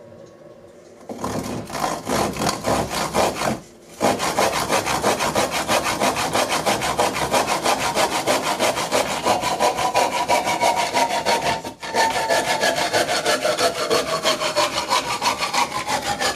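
Fox tail hand saw cutting through a length of wood held in a vise, with fast back-and-forth rasping strokes. The sawing starts about a second in and pauses briefly near four seconds and again near twelve. In the second half a ringing tone slowly falls in pitch.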